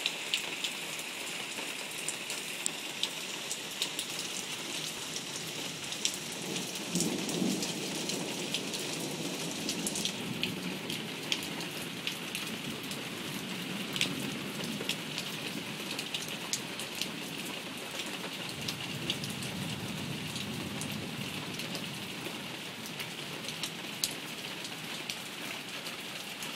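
Heavy rain pouring down in a steady hiss, with many sharp ticks of drops striking close by. A low rumble swells about seven seconds in and again later.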